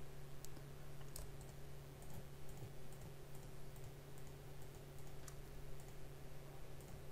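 Faint, scattered computer mouse clicks as polygons are selected one at a time, over a steady low hum.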